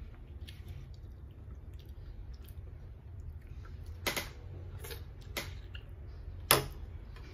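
Close-up eating sounds of a man eating fried fish and rice with his fingers: chewing, with a few sharp lip smacks and finger-sucking clicks in the second half, the last one the loudest. A low steady hum lies underneath.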